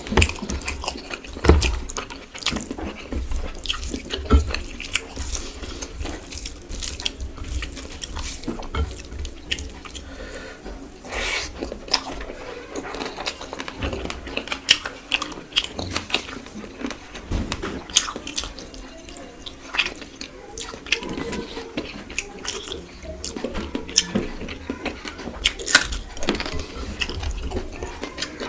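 Close-up eating sounds: wet chewing and lip smacks, with irregular clicks and taps throughout.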